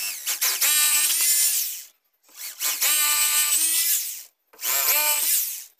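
Electric hand drill boring mounting holes into a masonry parapet wall, in three runs of about two seconds each with short pauses between them.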